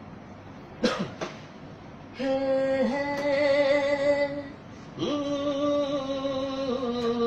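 A man's singing voice: a couple of short vocal sounds about a second in, then two long held notes with slight bends in pitch, a wordless opening before the lyrics start.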